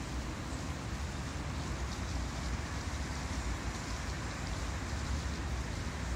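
Steady outdoor background noise: a low, fluctuating rumble under an even hiss, with no distinct event standing out.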